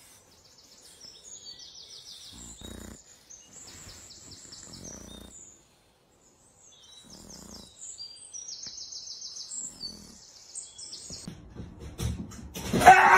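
Small birds chirping and trilling in quick repeated phrases, over soft rustling from a dog rolling on its back in grass. A brief loud noise near the end.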